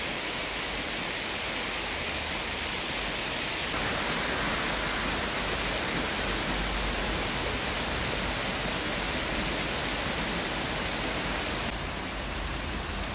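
Heavy rain pouring steadily, a dense even hiss. It grows a little louder about four seconds in, and the highest part of the hiss drops slightly near the end.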